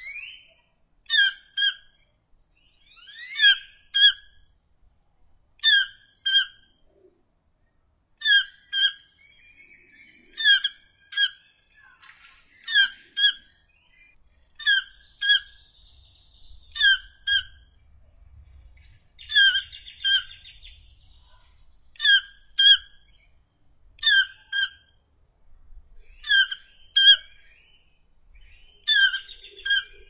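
Keel-billed toucan calling: short notes, mostly in pairs, repeated about every two seconds.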